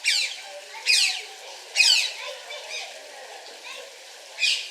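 Otter giving high-pitched chirping calls, each sweeping sharply down in pitch: three about a second apart, then a pause and one more near the end.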